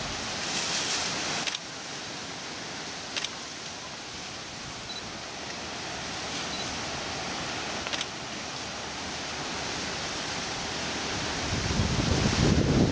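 Steady outdoor hiss with a few faint clicks, and wind buffeting the microphone in a low rumble that builds near the end.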